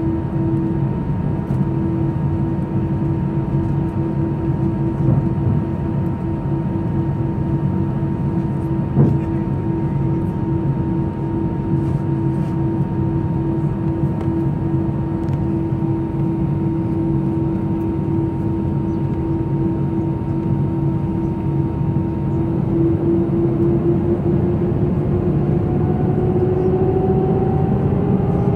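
Airbus A319 cabin noise over the wing: the jet engines running at low power, a steady whine over a rumble. Near the end the whine starts rising in pitch and grows a little louder as the engines spool up.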